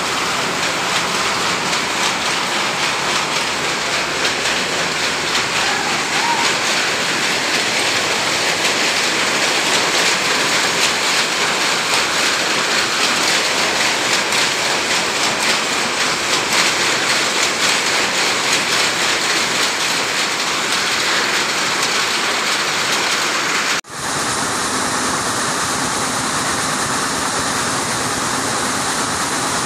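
Steady, dense clatter of many power looms running together in a weaving hall. About 24 seconds in it cuts abruptly to the steadier running noise of a single weaving loom heard up close.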